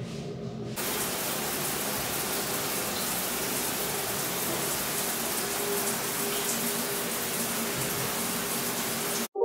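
Water spraying from a handheld shower head: a steady, even hiss that starts about a second in and cuts off abruptly near the end.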